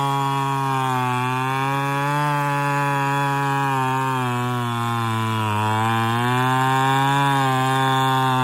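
Two-stroke chainsaw running at full throttle while cutting into the base of a large rain tree (trembesi) trunk. Its engine pitch sags under load as the chain bites into the wood, about a second in and again around the middle, then climbs back.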